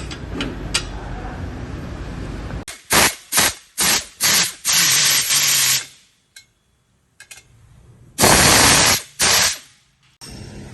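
Steady low hum, then a series of loud, short hissing bursts, a gap, and one longer hissing burst near the end.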